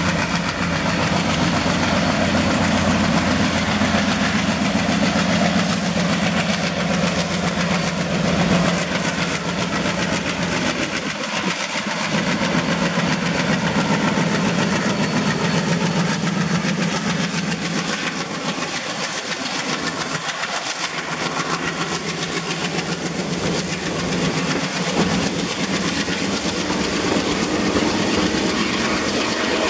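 Indian Railways WDM-3D diesel-electric locomotive's ALCO 16-cylinder engine running as it passes, its steady drone strongest in the first ten seconds or so, then the passenger coaches rolling by with a continuous clickety-clack of wheels over rail joints.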